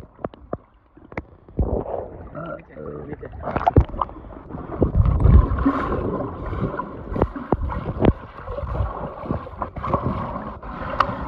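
Muffled gurgling and bubbling of pool water heard by a phone held underwater, with a swimmer's strokes stirring the water. Irregular sharp knocks and a low rumble come through, loudest about five seconds in.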